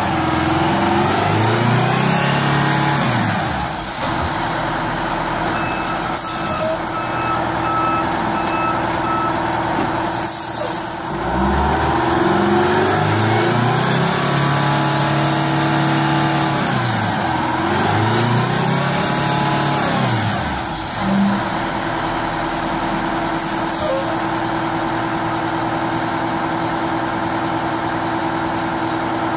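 Oshkosh M1070 tank transporter's diesel engine working under load as it hauls a lowboy trailer through mud, the revs rising and falling several times before settling to a steadier run in the last third. A few short air hisses and a brief steady tone come in around the middle.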